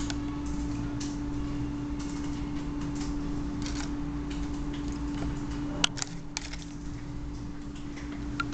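Light clicks and taps from handling a pen-shaped USB microscope and a banknote over a steady hum. There are two sharper clicks close together about six seconds in and another near the end.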